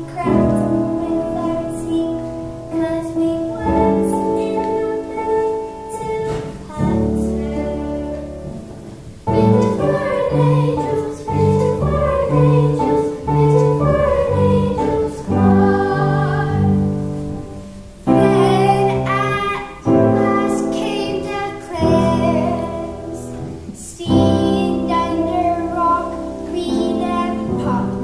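Young girls singing a song with piano accompaniment, in phrases with short breaks between them.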